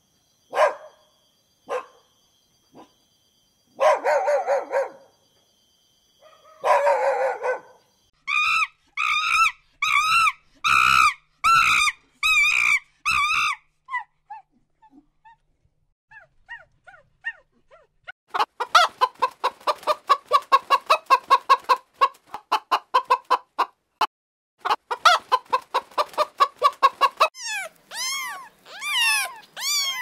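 A string of different animal calls with short gaps between them. First come three drawn-out calls. Then a run of repeated calls comes about two a second, followed by fast chattering, and near the end a cat meows with rising and falling glides.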